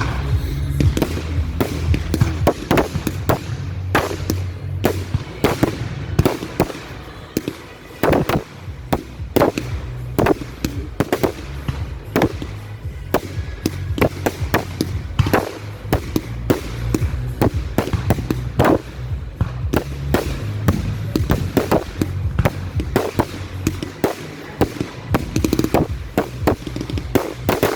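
Fireworks display: a rapid, continuous run of shell bursts and bangs, several a second, with crackles between them. Music with a steady bass line plays underneath.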